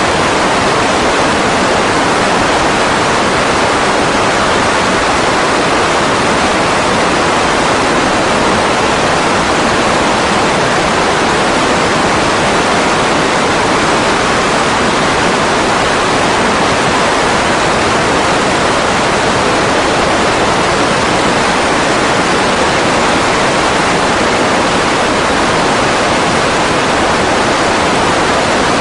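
Loud, steady, unchanging roar of the Grumman G-164 Ag Cat seaplane's engine and propeller mixed with rushing wind.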